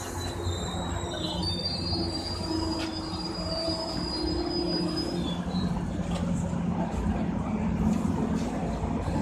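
Metro-North passenger coaches rolling slowly past as the train brakes to a stop, over a steady low hum. A thin, high-pitched squeal from the slowing train starts about one and a half seconds in and stops about halfway through.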